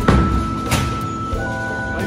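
Background music: held melodic notes over a beat.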